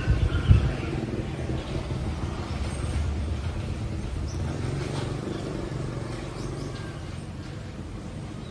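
A steady low rumble with a few thumps in the first second, and now and then a faint, short high bird chirp.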